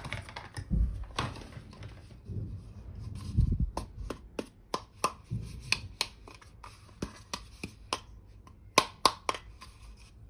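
Hands handling small plastic miniature toy kitchen pieces: soft rustling and a few dull knocks, then from about four seconds in a quick run of sharp clicks and taps, the loudest near the end.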